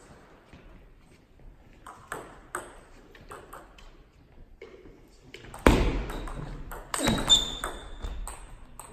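Table tennis ball hits echoing in a sports hall. A few light clicks come first, then from about two-thirds through a quick rally of sharp clicks as the celluloid ball strikes the paddles and the table.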